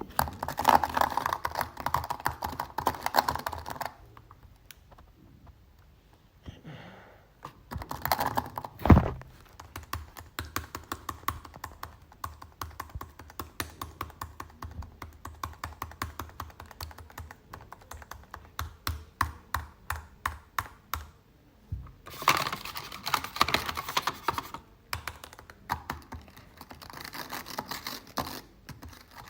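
Keys of a computer keyboard being typed on in quick runs of clicks, with several faster, denser flurries and one heavier thump about nine seconds in.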